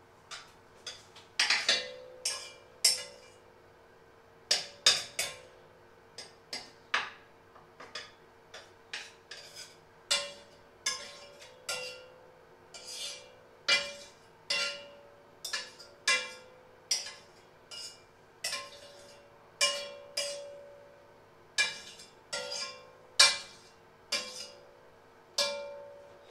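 A metal utensil tapping against a pan, about one sharp ringing clink a second at uneven strength. A faint steady hum lies underneath.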